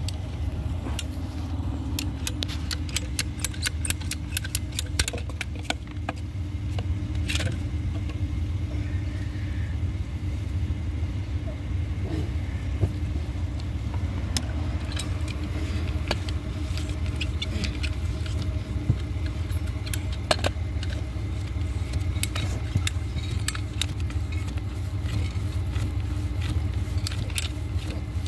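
A motor vehicle engine idling steadily with a low rumble, while many light, sharp clicks and taps come in quick runs through much of it.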